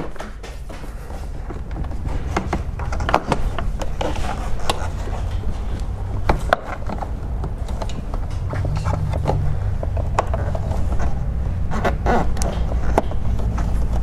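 Plastic interior trim clips clicking and snapping at irregular moments as a plastic pry tool works a car's pillar trim panel loose. A steady low rumble runs underneath.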